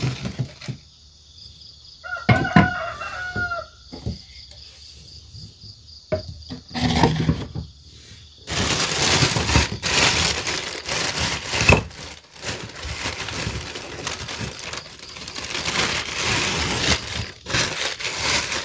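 A cockerel crows once, about two seconds in, a pitched call that drops away at its end. From about eight seconds in comes a long stretch of loud rustling noise.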